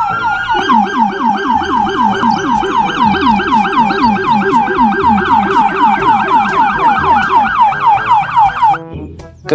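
Police car siren in a fast yelp: a short rising wind-up, then quick falling sweeps repeating about five times a second, cutting off abruptly near the end.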